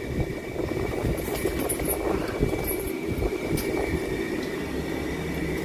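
Steady hum of an electric pedestal fan running, with a thin steady whine, and a few light clicks and rustles from handling a fabric suitcase.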